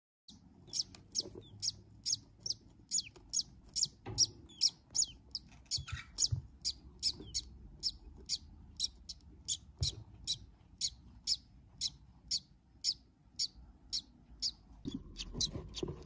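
Newly hatched chick peeping: short, high cheeps repeated evenly about twice a second. A rustling noise joins near the end.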